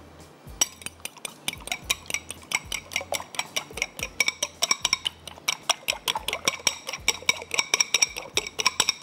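Eggs being beaten with a metal spoon in a glass bowl: a fast, even run of bright clinks of the spoon against the glass, several a second, starting about half a second in.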